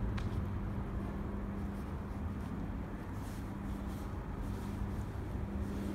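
Station ambience: a steady low hum over an uneven low rumble.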